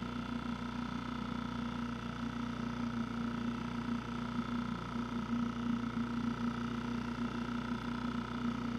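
Steady motor drone at a constant pitch, with no change in speed.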